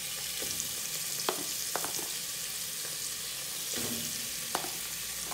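Chicken wing drumettes sizzling as they fry in hot oil in a pot, a steady hiss. A metal spoon knocks sharply about five times as pieces are dropped in one by one.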